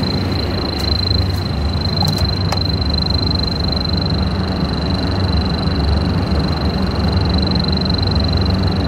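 Bacharach H-10 refrigerant leak detector giving its steady high-pitched tone while its probe is passed over the new valve's brazed joints, with no alarm: no refrigerant leak is being picked up. A steady low hum runs underneath.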